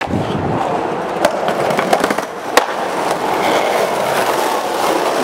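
Skateboard wheels rolling along pavement, a steady rough rumble, with sharp clacks about a second and a quarter and two and a half seconds in.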